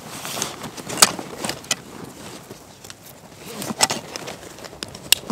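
Irregular clicks, scuffs and rustling, with a few sharp knocks, the loudest about a second in and near the end.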